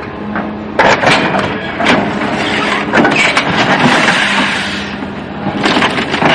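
Car crash: vehicle noise with a steady low hum, broken by several sharp bangs of impact, the loudest about a second in and again near three seconds.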